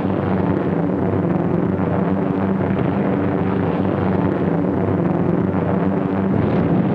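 Air-raid sound effects: the steady drone of heavy bombers' piston engines, a fixed-pitch hum over a dense, continuous rumble.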